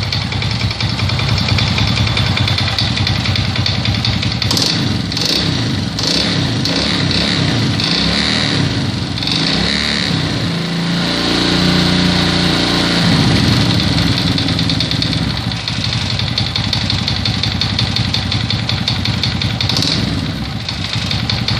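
Alpha 110 moped's small single-cylinder four-stroke engine running with a strong, characteristic knock that remains even after the crankshaft was replaced. The engine is revved up briefly near the middle, then drops back.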